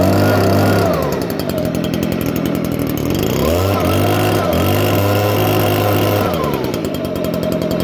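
2015 Stihl BG56C handheld leaf blower's small two-stroke engine running and being revved. It is at full throttle at first and drops back to idle about a second in, then revs up again about three and a half seconds in and holds high for a few seconds before falling back. It is a clean, smooth-running engine that runs very, very well.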